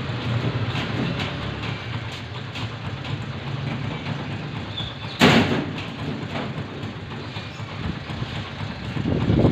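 Steady low background rumble with faint scattered ticks, and a single loud bang about five seconds in.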